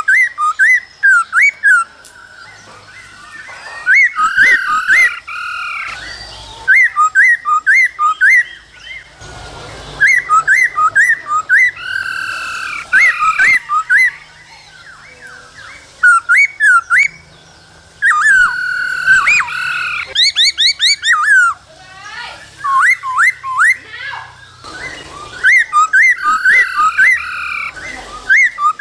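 Black-throated laughingthrush singing: loud phrases of quick, rising and falling whistled notes, about four or five a second, repeated in runs of a few seconds with short pauses between.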